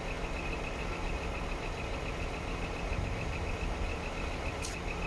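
Scania P 380 truck's nine-litre five-cylinder diesel engine idling steadily, a low even rumble. A brief high hiss comes near the end.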